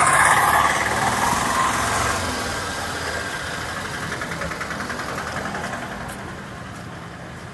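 A vehicle engine running close by with an even pulse. It is loudest in the first couple of seconds and fades steadily after that.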